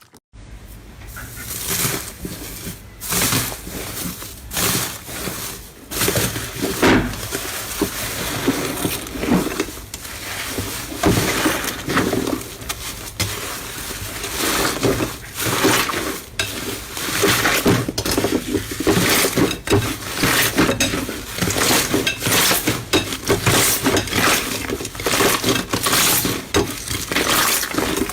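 Slime being squeezed and pressed by hand, a dense run of irregular crackles and clicks that starts suddenly.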